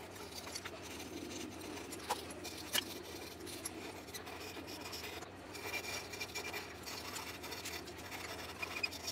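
Hand rasp scraping across curly maple wood in repeated strokes, a steady rasping with a couple of sharp clicks about two and three seconds in.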